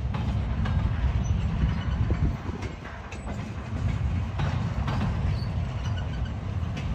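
Freight train rolling past: a steady low rumble of the cars with scattered clicks and clanks of wheels passing over rail joints.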